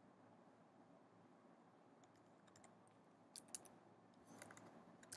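Faint key presses on a MacBook Pro laptop keyboard, a few scattered taps from about two seconds in, with small bunches of keystrokes around three and a half and four and a half seconds in, over near-silent room tone.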